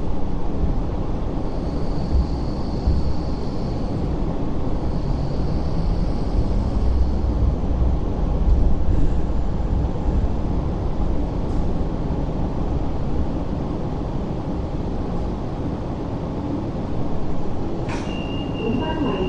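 Cabin noise of a Hong Kong Light Rail Phase 5 light rail vehicle running into its terminus platform: a steady low rumble of wheels on rail, with a faint high squeal twice in the first several seconds. Near the end there is a sharp click, then a steady high beep.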